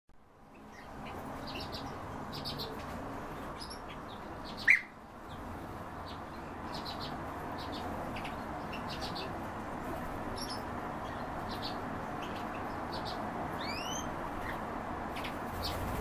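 Several pet birds chirping: many short, high chirps scattered throughout, one short loud call about five seconds in, and a rising whistled call near the end, over a steady background hiss.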